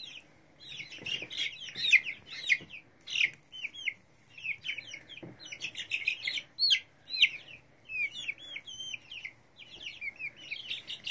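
Young chicks peeping: a dense run of short, high, overlapping chirps, many sliding down in pitch, with brief lulls between flurries.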